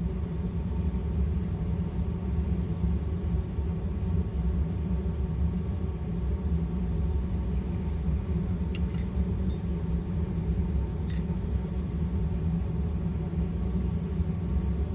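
Steady low mechanical hum, with a few faint light clicks of small metal gun parts being handled a little past the middle.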